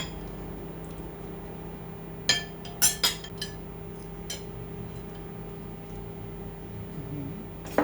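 Spoon clinking against a dish a handful of times while spooning out the juice, sharp clinks bunched about two to three and a half seconds in, over a steady low hum.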